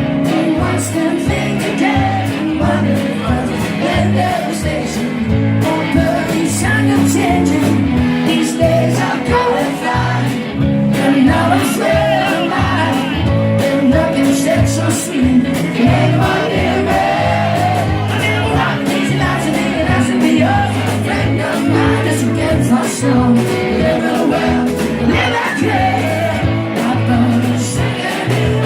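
Rock song with a male singer over guitar, bass and drums, playing steadily.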